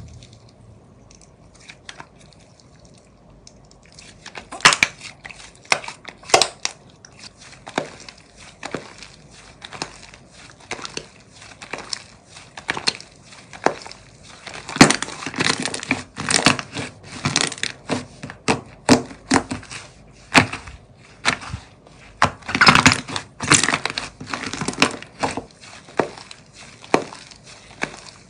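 Thick white slime being squeezed, folded and stretched by hand, giving irregular rapid pops and crackles. The first few seconds are quieter, and the popping grows dense about halfway through.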